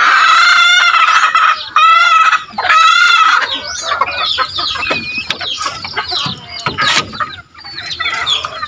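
Chickens calling in a wooden coop: three loud, drawn-out calls in the first three and a half seconds, the first the longest, then a busy run of shorter clucks and high calls.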